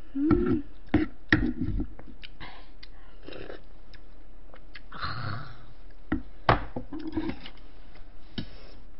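Eating sounds: a spoon and chopsticks clicking and scraping against bowls, with chewing and a few short hums.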